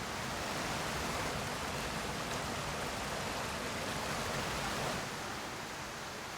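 Steady rushing splash of a small waterfall. It grows a little louder shortly after the start and settles back about five seconds in.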